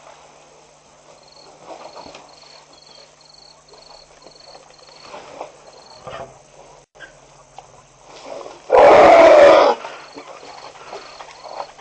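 African elephant giving a single loud call, about a second long, roughly three-quarters of the way through, over faint scattered sounds from the herd.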